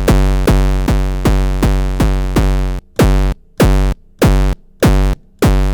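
Heavily distorted, hardstyle-type kick drum built from an audio feedback tone, repeating in a loop: each hit a buzzy, low pitched thump. The first hits come about two and a half a second with long overlapping tails; about halfway through they turn short and spaced out, under two a second.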